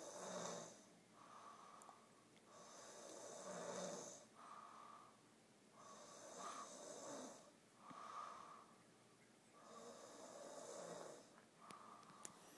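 Quiet, slow, rhythmic snoring from a sleeper, about one breath every four seconds. Each breath has two audible parts, one after the other.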